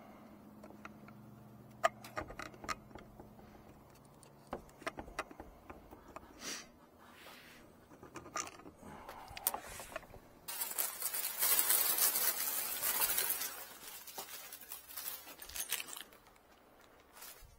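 Scattered small clicks and taps of hands handling metal light-fixture parts, then from about ten seconds in a few seconds of loud crinkling and clinking as a plastic bag of small screws and nuts is handled.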